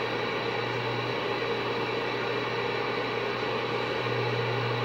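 Galaxy CB radio's speaker hissing with steady static on an open, empty channel, with a low steady hum under it that gets stronger about four seconds in. The S-meter needle sits at rest: no station is transmitting.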